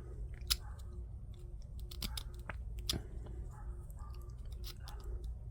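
Jeweler's file rasping in short back-and-forth strokes against the inside of a slot in a 3D-printed plastic part, with a few sharp clicks among the strokes.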